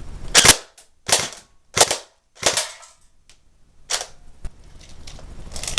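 Crosman Pulse R76 electric airsoft rifle firing about five short, sharp bursts at a can, spaced roughly two-thirds of a second apart. The gun is set to full-auto, not the intended semi-auto.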